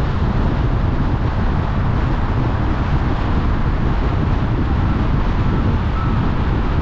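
Steady wind rumble on the microphone over the road noise of a car driving.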